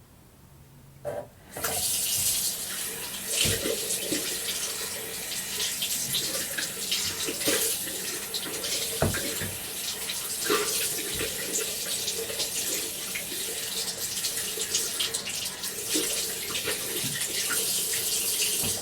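Bathroom tap turned on about a second and a half in, running into a sink while hands are washed under the stream, with uneven splashes. A short knock comes just before the water starts, and the water stops near the end.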